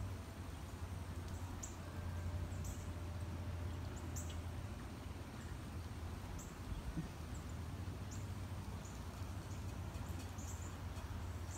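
Evening outdoor ambience: scattered brief high-pitched bird chirps every second or two over a low steady rumble.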